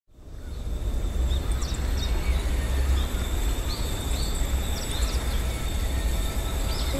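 Rural outdoor ambience fading in: small birds chirping in short scattered calls over a steady low rumble.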